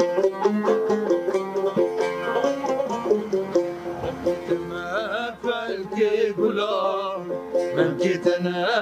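Two long-necked lutes (saz) played with a plectrum in quick melodic runs. About halfway through, a wavering, ornamented voice comes in over the strings.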